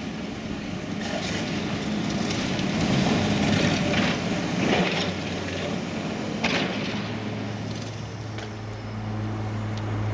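Komatsu PC210LC tracked excavator's diesel engine running as the machine moves over brick rubble, with scattered knocks and crunches of rubble and steel tracks. It settles into a steady engine drone in the last few seconds.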